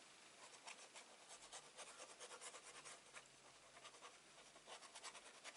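Faint, irregular scratching of a liquid glue applicator tip drawn across card stock.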